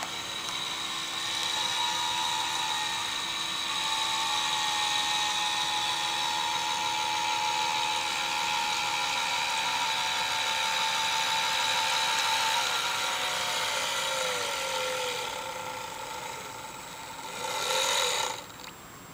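Electric RC boat outboard (Aqua Race 50 with a 28-size brushless motor on a 3S LiPo) running with a steady high-pitched whine as the boat planes across the water. About two-thirds of the way through the pitch falls as the throttle is eased, then a short louder burst of throttle rises in pitch near the end and the motor stops.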